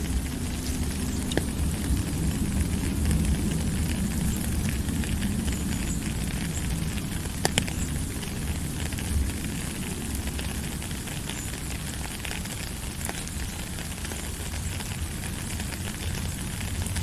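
A fire burning with a steady low rumble and hiss, broken by a few sharp pops.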